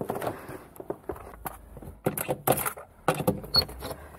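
Irregular knocks, clatter and crunching of someone getting about on crutches, with a door being opened near the end.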